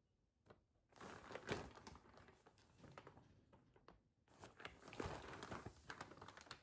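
Paper rice sack crinkling and rustling as a cat moves about inside it, in two spells: from about a second in, then again after a short pause just past four seconds.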